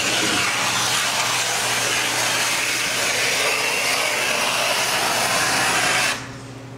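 Block plane shaving the edge of a plywood boat bottom panel in one long continuous pass, cutting the bevel where the two bottom panels meet at the keel: an even hiss of the blade taking shavings that stops abruptly about six seconds in.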